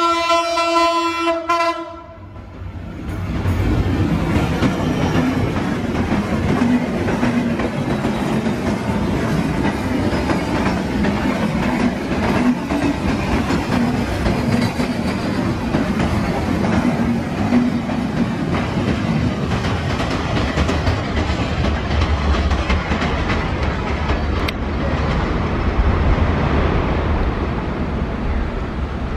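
EMD GT42ACL diesel locomotive's horn sounding one held note that cuts off about two seconds in. Then the Intercity passenger coaches roll past, their wheels running and clattering on the rails in a steady noise.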